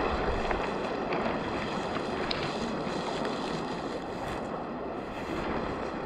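Steady rushing of river water mixed with wind on the microphone, with a few faint light ticks.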